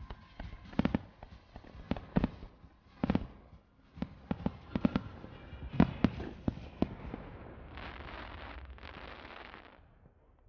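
Fireworks going off: a rapid string of sharp bangs from bursting shells, the loudest about six seconds in, then about two seconds of dense hissing noise near the end.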